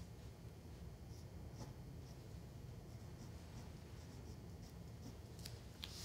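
Pencil strokes scratching faintly on paper as a sketch is drawn and shaded, over a low steady hum. A few sharper ticks come near the end.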